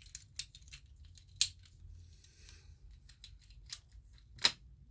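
Plastic fidget cube being clicked by hand: a scattering of sharp, irregular clicks, with a louder one about a second and a half in and another near the end.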